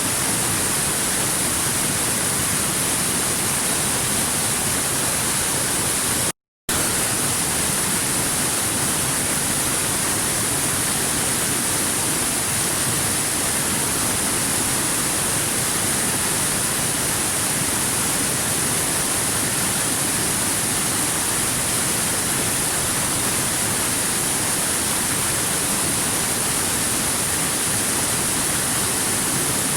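Stream water running over river rocks: a steady, unbroken rushing hiss. It cuts out completely for a fraction of a second about six and a half seconds in.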